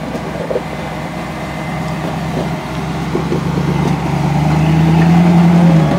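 Engine of a lifted 4x4 rock crawler working under load as it climbs a steep rock ledge. The engine note grows louder from about three seconds in, peaks near the end, then eases off.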